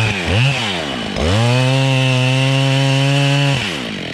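Husqvarna 572 XPG chainsaw, a new saw not yet run in. It is blipped up and down for about a second, then held steady at full throttle for about two seconds, and drops back toward idle near the end.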